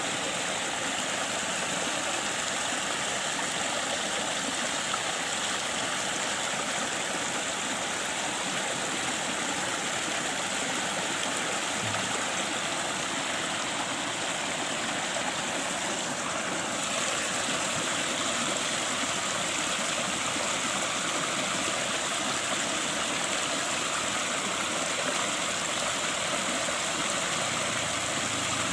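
A small stream flowing steadily, its water rushing and splashing.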